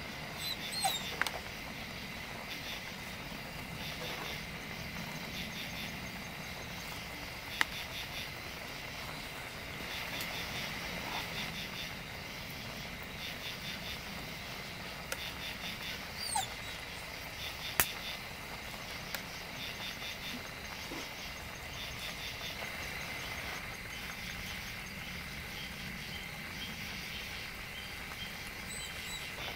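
Insects chirping in a steady pulsing rhythm over a low, even hiss from the simmering stew pan. A few sharp metal clicks from tongs on the pan come near the start, about 7 seconds in and about 18 seconds in.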